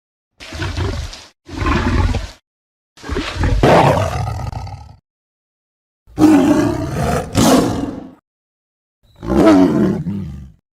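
Tiger roar sound effects played as a series of five separate clips, each one to two seconds long, with dead silence cut in between; the fourth clip has two roars in quick succession.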